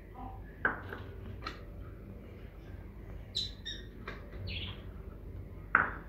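Pet parrots giving a few short chirps and squawks, mostly around the middle. Terracotta clay bowls being handled on a concrete floor give sharp knocks about half a second in and, louder, just before the end.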